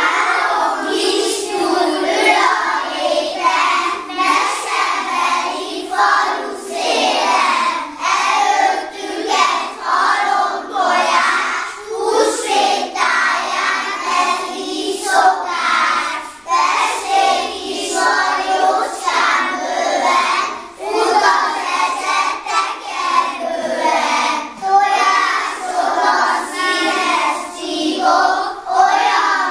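A group of young kindergarten children singing a song together.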